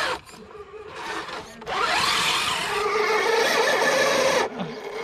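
Electric motor and gears of a 1/10-scale RC crawler whining under throttle. The whine rises in pitch about two seconds in, holds for a couple of seconds, then cuts off.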